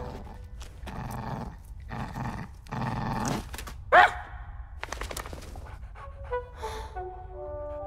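Sound effects for a small cartoon terrier: a few short noisy breaths, then one sharp high yip about four seconds in, the loudest sound, followed by more short breaths.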